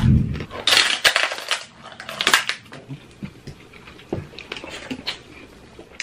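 Close-miked bites into crispy fried chicken crunching loudly, three bursts over the first couple of seconds, followed by quieter chewing and mouth smacks.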